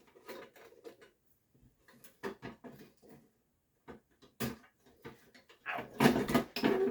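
Scattered clicks and knocks of the IBM 5150's floppy drive and metal case being handled as the drive is worked loose and lifted out, with a denser clatter about six seconds in.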